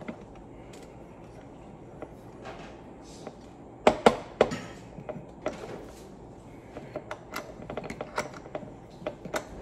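VISM universal pistol rear sight pusher being cranked by hand to drive a Glock's rear sight out of its dovetail: metal clicks and knocks from the tool and slide, loudest in a cluster about 4 seconds in, then a run of light quick ticks near the end. The sight is moving out without trouble.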